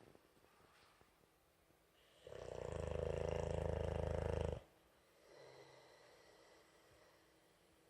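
Boxer puppy snoring loudly: one long snore of about two seconds, starting a little over two seconds in, then a fainter, shorter breath.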